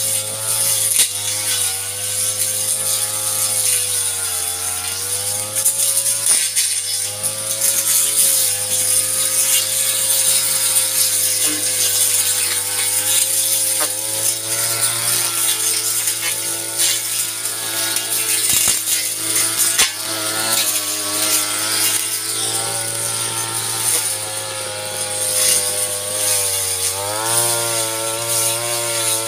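Brush cutter engine running at high speed while cutting grass and weeds. Its pitch dips and recovers a few times as the load changes.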